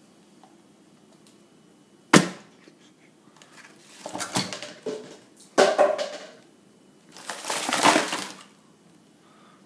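A single sharp knock about two seconds in, as a watermelon half comes down on the stone countertop. Then three stretches of crinkling and crushing as plastic and paper packaging is pressed and stuffed into the hollowed watermelon rind.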